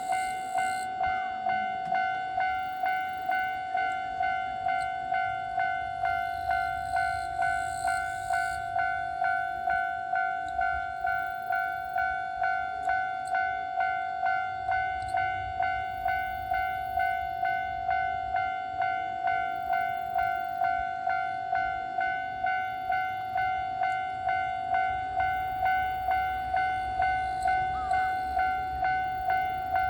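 Japanese electronic railroad crossing alarm ringing its steady two-tone 'kan-kan', a little under two strokes a second, warning that a train is approaching. A train's low rumble comes and goes beneath it.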